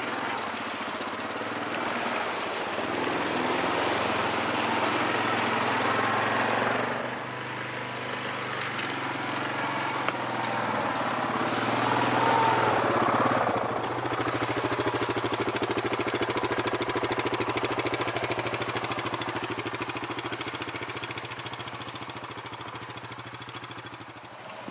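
Off-road vehicle engine running while driving, its note rising and falling with the throttle: it eases off about seven seconds in, pulls harder around twelve seconds, then settles to a steady run.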